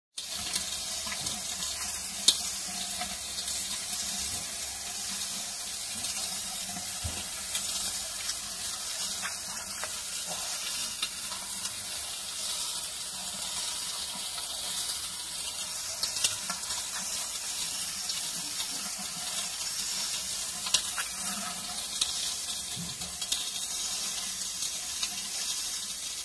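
Weber Q 2200 gas barbecue burning with its lid closed: a steady hiss with a few sharp crackles, grease burning off inside the hot cookbox.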